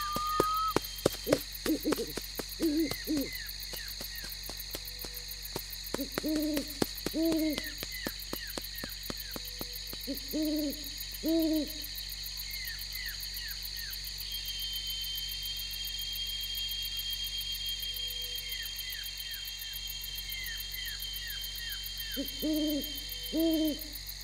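An owl hooting: short groups of two or three low hoots, heard three times. Faint chirping and, from about midway, a steady high insect whine.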